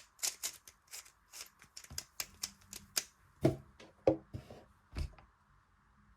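Magnetic 3x3 speed cube being turned fast: a quick, uneven run of sharp clicks and snaps as the layers turn, several a second, with a few louder snaps before it stops about five seconds in.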